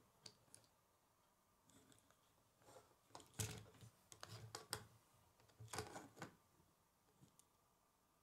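Faint handling noise of a plastic K'nex model: rattling clicks of its rods and connectors and light knocks of it against a wooden tabletop as it is turned over and set back down, in two bursts of clicking about three and six seconds in.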